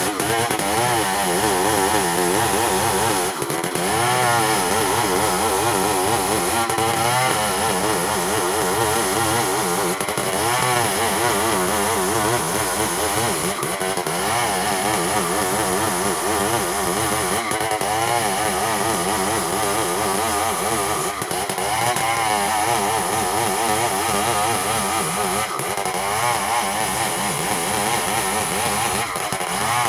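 Two-stroke chainsaw running at cutting speed as it rips a log lengthwise into boards, the engine pitch wavering up and down as the chain works through the wood.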